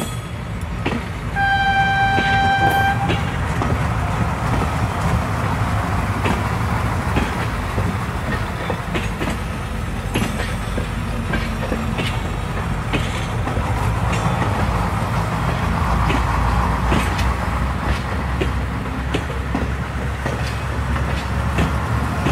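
A train horn sounds once, a single steady note about a second and a half long. Then a train runs on the rails, a steady low rumble with irregular clicks from the wheels over the rail joints.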